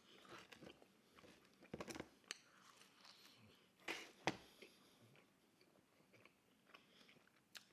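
Pizza being chewed close to the microphone, faint, with scattered sharp clicks, the loudest about four seconds in.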